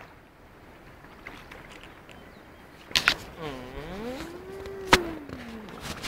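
Two sharp clicks, and between them one drawn-out gliding call from a voice: it dips, rises, then holds in a long arch before falling away.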